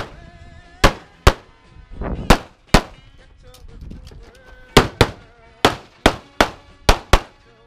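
A handgun firing during a timed practical-shooting stage: about eleven sharp shots, mostly in pairs, coming faster in the second half.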